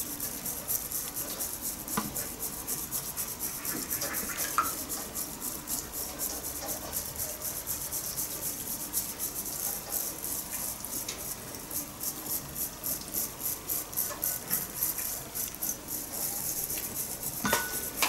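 Bamboo matcha whisk (chasen) swishing rapidly back and forth through matcha in a ceramic bowl, whipping it into a fine froth: a fast, even, scratchy rhythm of strokes.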